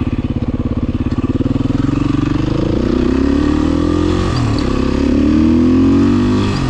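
2016 Beta 500 RS single-cylinder four-stroke engine under way, first running at low revs with a slow, even pulse, then rising in pitch as it pulls. A short dip about four seconds in and another near the end sound like gear changes.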